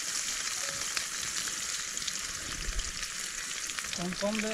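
Chopped onions sizzling in hot oil in a kadai, a steady hiss with many fine crackles.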